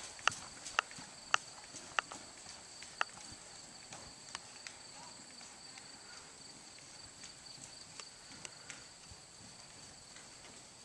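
Hoofbeats of a horse moving on a sand arena footing. A few sharp footfalls come in the first three seconds, then they turn faint and sparse as the horse moves away.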